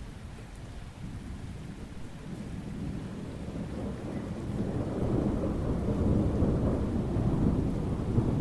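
Thunderstorm: a low roll of thunder builds from about three seconds in and rumbles at its loudest near the end, over steady rain.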